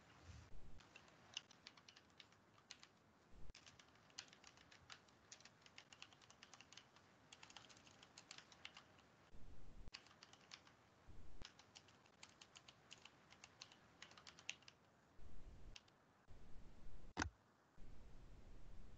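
Faint typing on a computer keyboard: runs of quick key clicks with pauses, and one sharper click near the end.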